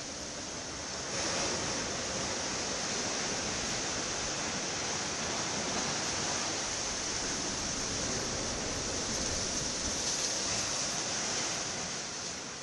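Sea surf washing up over a sand beach and around rocks: a steady rushing hiss of breaking and foaming water, a little louder from about a second in.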